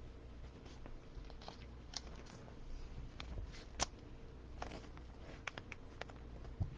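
Trading cards being handled and shuffled: faint, scattered clicks and rustles of card stock, the sharpest a little before four seconds in.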